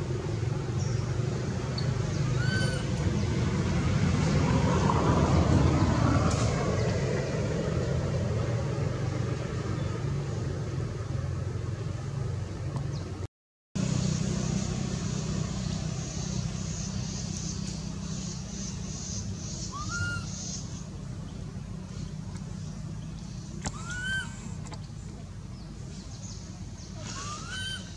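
Steady low outdoor rumble that swells and fades about five seconds in, like a passing vehicle. In the second half, a few short, high chirping calls that each rise and fall.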